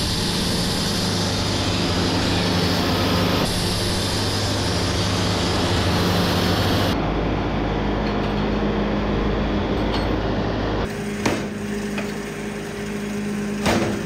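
Wood-Mizer Super 70 band sawmill sawing oak: the blade cutting through the log over a steady machine hum. The sound changes abruptly a few times as separate stretches of the cut follow one another, and a couple of sharp knocks come near the end.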